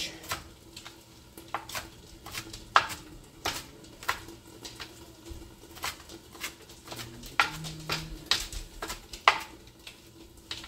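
Kitchen knife roughly chopping fresh spinach on a cutting board: sharp knocks of the blade against the board, uneven, about one a second.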